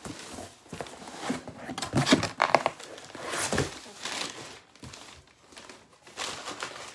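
Packing paper crinkling and cardboard boxes being shifted and handled, with a few sharp knocks about two seconds in.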